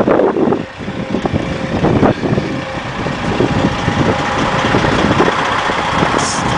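Wind buffeting the microphone, a loud rough rushing with irregular low rumbling, with a faint steady tone underneath from the tornado sirens sounding in the town.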